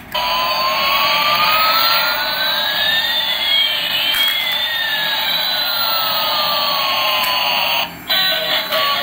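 Toy Airbus A380's electronic jet-engine sound effect from its small built-in speaker: a steady rushing hiss with one whistle rising and another falling, the two crossing about halfway through. It cuts off about eight seconds in.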